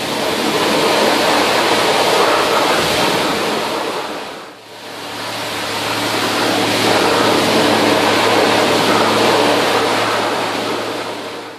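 Car wash pressure-washer wand blasting a hard jet of water onto a greasy cast-iron lathe part and the concrete floor, a loud steady hiss that briefly drops away about halfway through and then resumes. A steady low hum runs under the spray in the second half.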